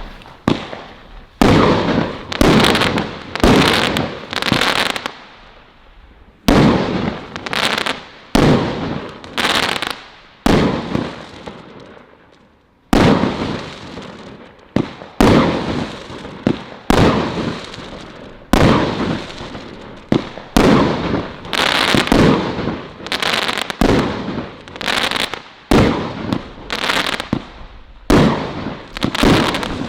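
Category 3 garden firework firing a rapid series of shots, each bursting into crackles that fizzle out, with brief lulls about five and twelve seconds in.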